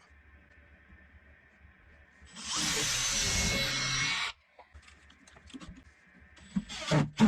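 A power drill running with a faint whine, then working loudly for about two seconds, as when a bit or screw bites into wood, and dropping back to a light whine. A few sharp knocks come near the end.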